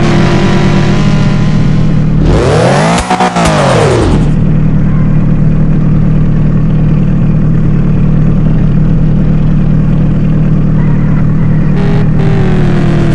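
Holden VN Commodore engine running loud and steady at raised revs, with one sharp rev that rises and falls in pitch about two to four seconds in.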